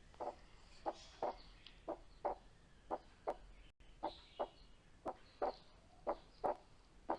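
Recorded heart sounds heard through a stethoscope, a steady lub-dub about once a second, with the breath sound filtered out. The recording demonstrates physiological splitting of the second heart sound, which splits into two on inspiration and becomes single on expiration.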